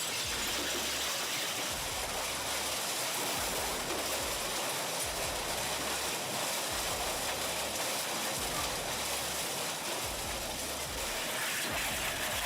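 Industrial e-waste shredder running, a steady even rushing noise with no distinct impacts.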